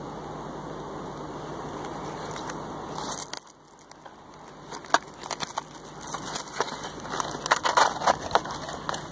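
Steady background hiss that cuts out about three seconds in. It is followed by irregular crackling and crunching of dry grass and leaf litter, growing louder and busier near the end.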